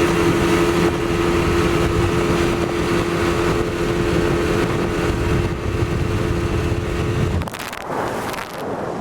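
115 hp Mercury two-stroke outboard running steadily on a test run after its fuel hoses were replaced. About seven seconds in the engine sound cuts off abruptly and gives way to wind noise on the microphone.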